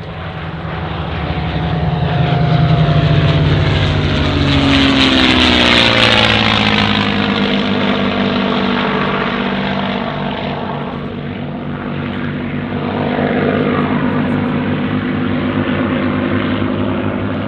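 Piston-engined WWII fighters, a P-51 Mustang and a Spitfire, flying past with their V-12 engines droning. The pitch drops as they pass about five seconds in. The sound eases a little, then swells again as the Mustang banks around on its own.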